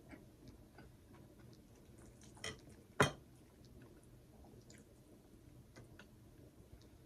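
Quiet eating sounds: small wet mouth clicks and chewing, with two sharper taps about two and a half and three seconds in, the second the loudest, like a utensil or fingers knocking a plate.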